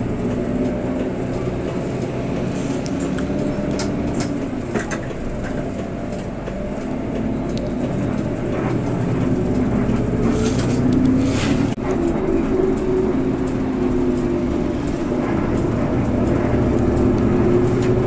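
Intercity bus engine running steadily, heard from inside the cabin, its pitch and loudness slowly rising in the second half as the bus picks up speed. A short hiss comes about ten to twelve seconds in.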